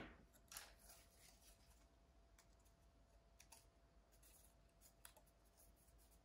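Near silence with faint rustling of folded paper strips handled and pressed together, and a few light taps scattered through.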